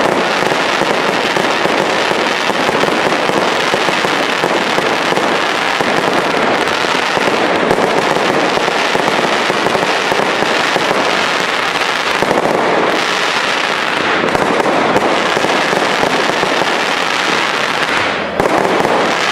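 Firework cakes firing in a dense, unbroken barrage of bangs and crackling bursts overhead, thinning briefly near the end.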